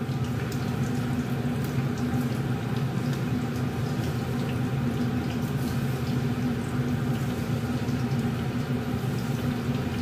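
Battered fish frying in a pan of hot oil: a steady bubbling sizzle under a low, steady hum.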